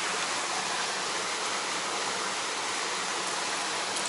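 Steady rush of stream water flowing through a rocky channel, with one light click near the end.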